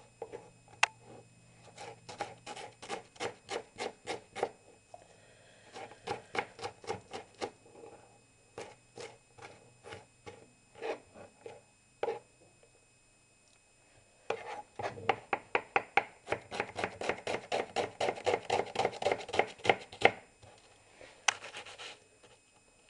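Kitchen knife chopping diced onion finely on a cutting board: quick runs of blade strikes on the board, several a second, with a pause of about two seconds past the middle and the densest, fastest run after it.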